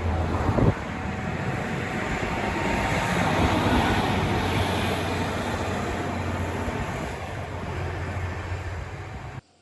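Diesel train passing over a level crossing: a steady engine drone under loud wheel-and-rail noise, with a sharp clank about half a second in. The noise swells around the middle, eases off, then cuts off suddenly near the end.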